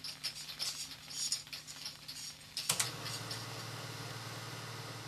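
Clicks and rattles of hands working a reel film projector's mechanism. About two and a half seconds in, the projector starts up and runs with a steady, rapid mechanical clatter over a low motor hum.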